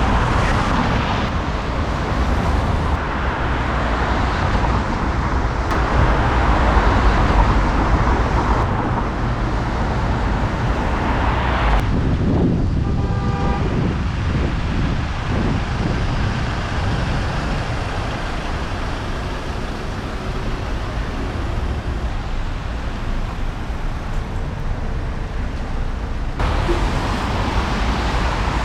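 City street traffic noise, a steady rumbling wash of passing vehicles in a snowstorm. About halfway through comes a short run of brief tones stepping down in pitch.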